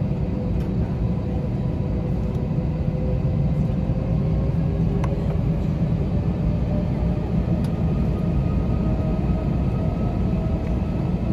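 Airliner cabin noise of an Airbus A321 with IAE V2500 engines: a steady low rumble with a faint engine whine slowly rising in pitch.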